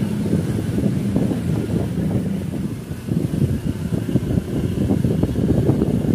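Wind buffeting the microphone of a camera on a moving vehicle, a rough, uneven rumble, with the vehicle's engine running low underneath.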